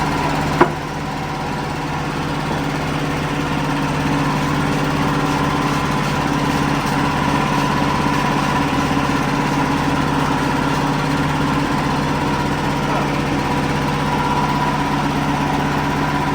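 WoodMizer LX55 sawmill's engine running steadily at a constant speed, with one sharp click about half a second in.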